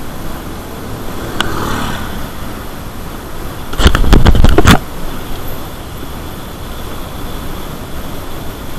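Riding noise from a mountain bike on a concrete road: a steady rush of wind and road rumble on the microphone. A little under four seconds in comes a loud burst of rapid rattling knocks lasting about a second.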